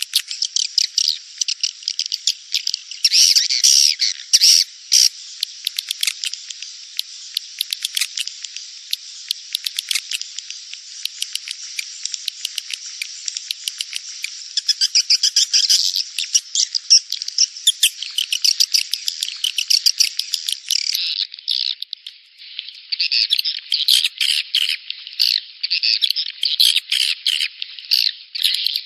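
Edible-nest swiftlet lure-call recording ('suara panggil walet'): a dense, high-pitched twittering of chirps and rattling trills, repeating rapidly and steadily. It is a breeding-season ('birahi') call track played to draw swiftlets into a swiftlet house.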